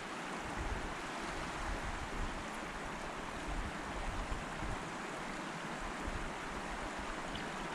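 Steady rush of flowing creek water, with wind rumbling unevenly on the microphone.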